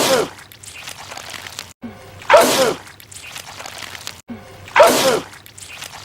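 A man's loud, exaggerated comic sneeze repeated in a loop: a short rising 'ah-' and then the loud 'choo', coming three times about two and a half seconds apart.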